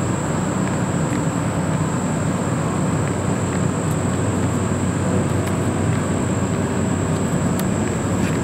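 Steady low mechanical rumble with a thin, steady high-pitched whine over it. A few faint clicks come through it as the Mavic Air drone's folding arms are unfolded.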